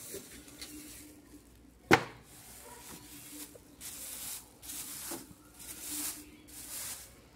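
Black plastic garbage bag rustling in several short bursts as it is handled. A single sharp knock comes about two seconds in.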